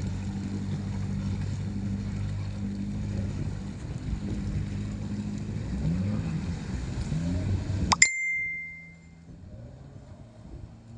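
Jet ski's 1300 cc Suzuki engine running steadily, with a few short rises in pitch. About eight seconds in the engine sound stops suddenly with a sharp metallic ding that rings for about a second, leaving a faint low hum.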